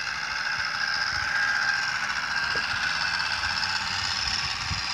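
Small 12-volt motor fitted to a bicycle, running with a steady whine as it drives the bike along.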